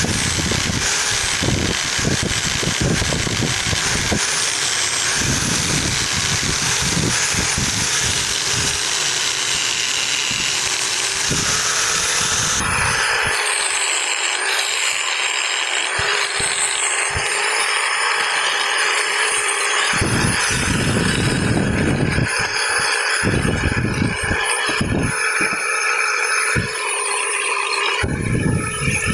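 Handheld angle grinder running with a steady high whine, its disc grinding steel. The grinding noise changes in texture a little before halfway through and carries on.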